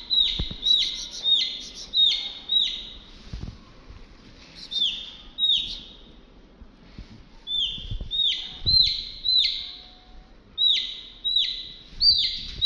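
A chick peeping loudly and over and over, each peep a quick falling note, about two a second in runs with short breaks: the distress calls of a chick held near a predator.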